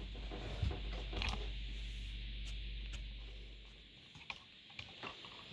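Faint handling noise: scattered light clicks and knocks as the camera is moved, over a low steady hum that fades out about four seconds in.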